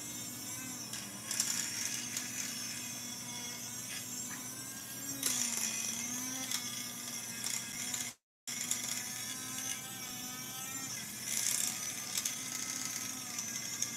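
Small battery-powered electric tobacco grinder running with a steady hum that wavers in pitch as it grinds a piece of chalk into powder, the chalk rattling inside the chamber. The sound cuts out completely for a split second about eight seconds in.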